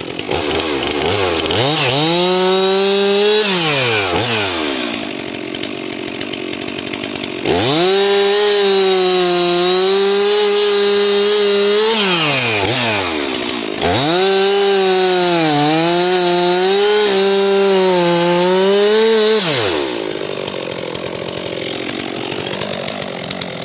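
Stihl MS 362 C-M two-stroke chainsaw cutting firewood: three runs at full throttle, each falling back to idle. During the last cut the engine speed dips twice under load.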